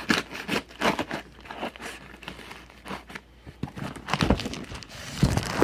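Packing tape being peeled and torn off a cardboard box, with irregular crinkling and crackling as the box is worked open, growing louder near the end.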